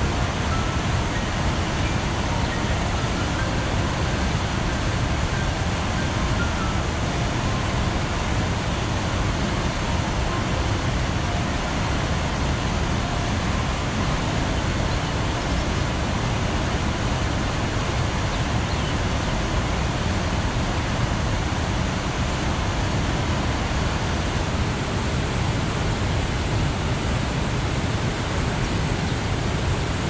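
Large waterfall and rapids: a heavy volume of whitewater pouring over and between rocks in a steady, deep rushing roar.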